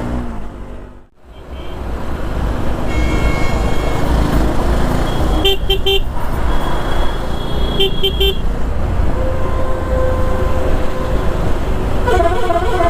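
Wind and road noise from riding a motorcycle on a highway, with vehicle horns beeping in short double bursts twice, about five and a half and eight seconds in. The sound dips out briefly about a second in.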